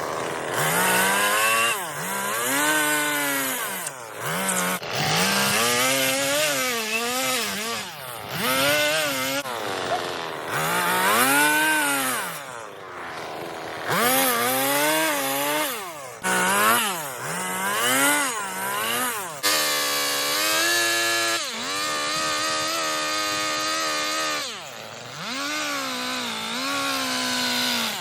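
Chainsaw carving wood, its engine revving up and dropping back over and over, the pitch rising and falling every second or two, with a few briefer steady stretches.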